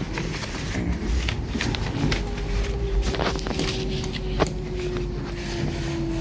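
Footsteps and clatter over the rumble of a Docklands Light Railway station. About two seconds in, the electric motor whine of a DLR train comes in as one steady tone that sinks slowly in pitch.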